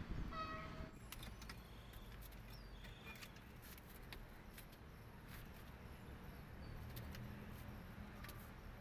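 Faint outdoor background noise: a steady low rumble with scattered light clicks, a short pitched call in the first second and a couple of brief high chirps.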